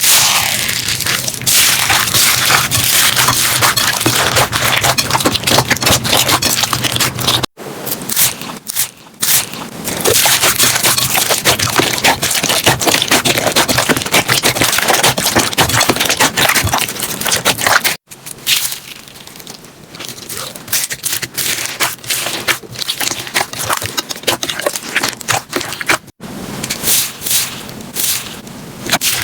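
Slime being squeezed, pressed and poked by hand, with dense crackling and popping clicks. The texture changes abruptly at cuts about 7 and a half, 18 and 26 seconds in, as one slime gives way to another.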